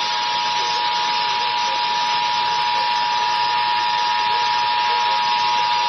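Emergency Alert System attention signal: a steady two-note tone (853 and 960 Hz) held continuously over a bed of radio hiss, as received off-air from a station relaying a tornado warning.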